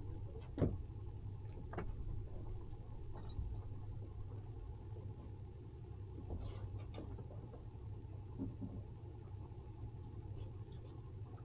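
Towboat's engine idling with a steady low hum, with a few scattered knocks and clicks as the tow line is handled on deck; the sharpest knock comes about half a second in.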